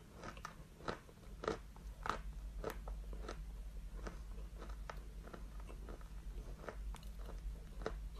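A mouthful of chalk being chewed: irregular sharp crunches, one or two a second, over a steady low hum.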